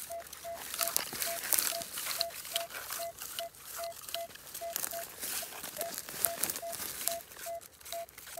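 Minelab Equinox 800 metal detector giving a short, even beep about two and a half times a second, sounding off a buried target under the coil. Dry stubble crackles throughout.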